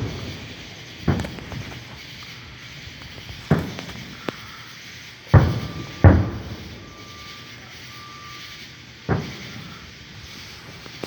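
Firework shells bursting at a distance: five sharp booms a couple of seconds apart, two of them close together near the middle, each dying away in a rumble.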